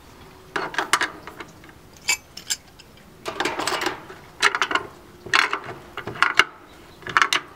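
Channel lock pliers clicking and scraping against a steel nut and bolt as the nut is tightened in repeated short turns, a burst of metallic clicks roughly every second.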